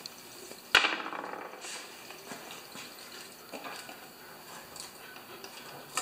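One sharp metallic clank a little under a second in, with a brief ring, then a few light clicks and taps of hand tools against metal as bolts are worked off a small engine's carburetor.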